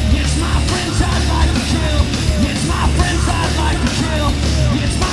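Loud live heavy rock band playing, with electric bass and drums.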